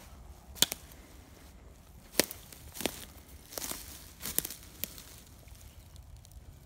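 Footsteps through woodland undergrowth: about half a dozen uneven crackling steps.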